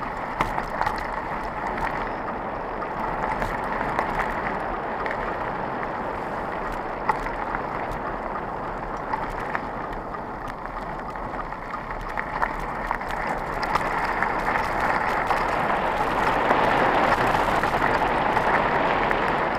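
Mountain bike rolling fast over a dirt track: a steady rush of tyre noise with frequent sharp rattles and knocks from the bike, getting louder over the last few seconds as the track turns to loose gravel.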